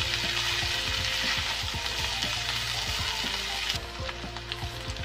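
Potato and drumstick strips sizzling in hot oil in a frying pan, with scattered scrapes and knocks from a wooden spatula stirring them. The sizzle drops off sharply about four seconds in.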